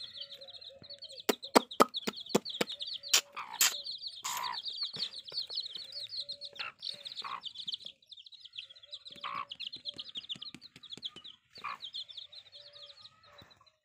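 A brood of young chicks peeping rapidly and continuously, with a mother hen's soft low clucks repeating underneath. Several sharp clicks and taps come in the first few seconds.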